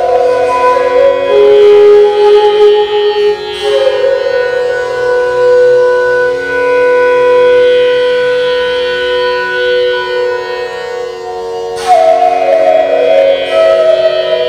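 Solo bansuri, an Indian bamboo flute, improvising slow held notes: one long sustained note through the middle, then a new phrase entering sharply about twelve seconds in. The notes ring on and overlap in the echo of an empty stone water tank.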